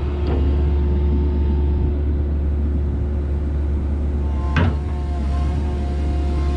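Komatsu PC138US-8 excavator's diesel engine running steadily, a low drone with a constant hum over it. It is broken by a faint knock just after the start and a louder, sharp knock about four and a half seconds in.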